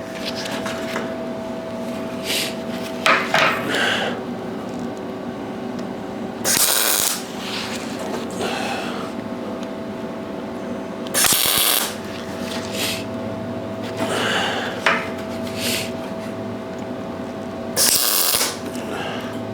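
Welding machine humming steadily, with three short bursts of crackling hiss from quick tack welds on steel.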